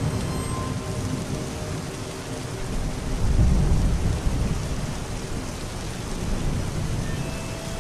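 Steady rain with a low rumble of thunder that builds about three seconds in and peaks a second later before rolling away.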